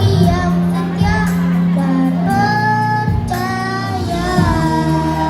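A child singing a melody with long held notes over instrumental backing music.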